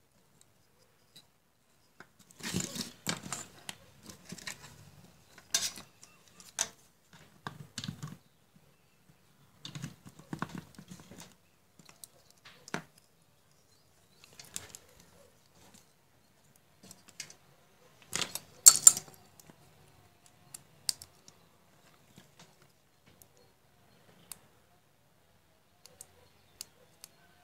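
Hands handling wires and a small plastic plug on a tabletop: scattered clicks and rustles, with one louder click about two-thirds of the way through. Near the end come a few small ticks as the W1209 thermostat board's push-buttons are pressed.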